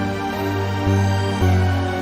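Background music: a hip-hop type beat with sustained bass notes that change every half second or so.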